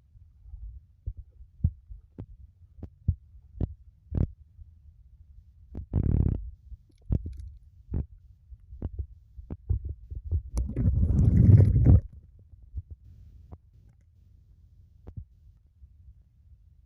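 Footsteps of a person walking on skis through deep snow, heard as soft, irregular thumps about one to two a second close to the microphone. There is a short rubbing noise about six seconds in and a longer, louder rubbing noise later on.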